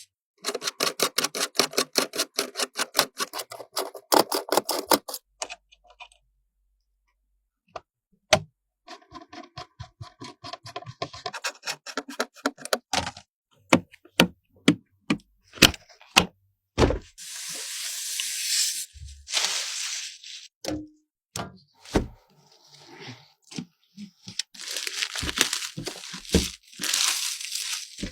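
Hardware being handled during a PC build: a quick, even run of clicking for several seconds, then scattered sharp clicks and knocks, with two stretches of rustling and scraping.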